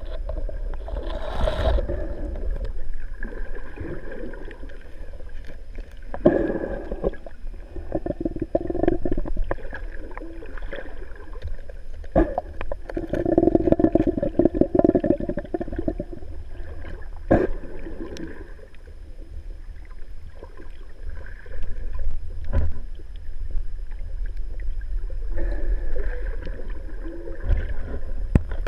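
Muffled underwater sound picked up by a GoPro in its waterproof housing: a steady low rumble of moving water with irregular gurgling bubbles and a few sharp clicks.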